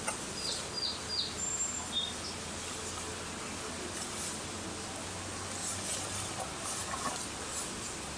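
A small bird chirping: three quick falling chirps, then a couple of brief higher whistles about two seconds in, over a steady outdoor hiss.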